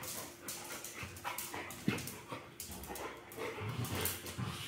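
Two golden retrievers play-fighting on a tile floor: dog vocal noises and panting over a busy patter of clicks and scuffles from claws and paws on the tile, with one sharper knock just before two seconds in.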